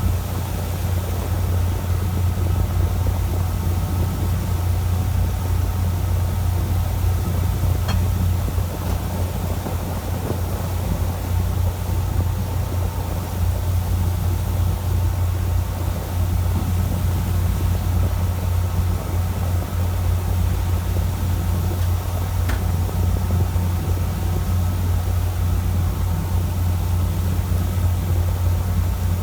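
A fishing boat's engine running steadily, a low, even drone, with a couple of faint clicks.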